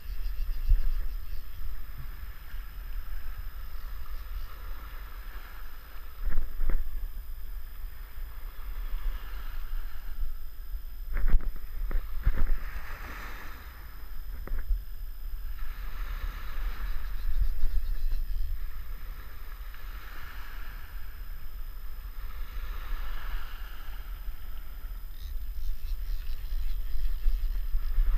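Wind rumbling on a wearable camera's microphone over wading water and small surf, the wash swelling and fading every few seconds. A few sharp knocks come about six seconds in and again around eleven to twelve seconds.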